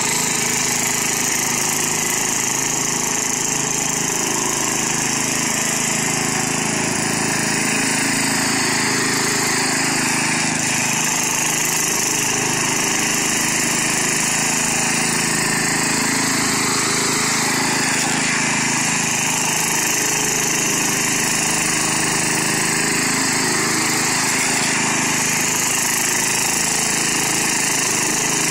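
Riding lawn mower engine running steadily at speed.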